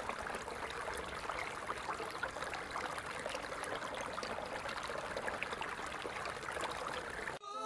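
Steady running-water sound, like a flowing stream, with fine splashing crackles throughout; it cuts off abruptly just before the end.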